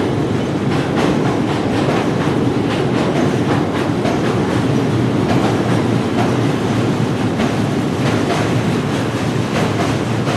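Train running along the track: a steady rumble with irregular sharp clicks of the wheels over the rails.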